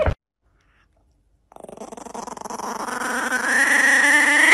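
Small chihuahua-type puppy growling at a hand reaching toward the small bottle beside it, a possessive warning. The growl starts about a second and a half in and builds steadily louder, rising in pitch toward the end.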